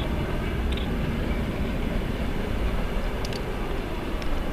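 Passenger train coaches rolling past on the track: a steady rumble of wheels on rails.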